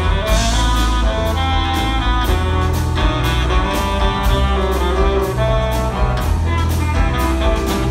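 Band playing an instrumental passage with no singing: sustained melodic lines over a bass line and a steady drum beat.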